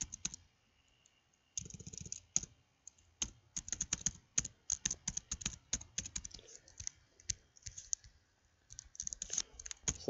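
Typing on a computer keyboard: quick runs of keystrokes, with short pauses about a second in and again near the end.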